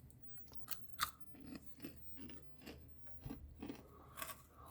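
A person biting and chewing a crisp air-fried chicken nugget: faint, irregular crunches and mouth clicks.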